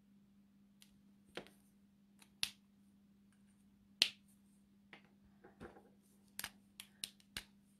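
Plastic Copic alcohol markers clicking and clacking as they are capped, put down and picked up: a string of about ten sharp clicks, the loudest about four seconds in.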